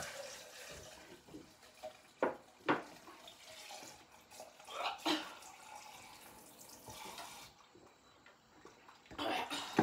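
Kitchen tap running faintly into a sink, with a few sharp knocks: two close together about two seconds in and another about five seconds in.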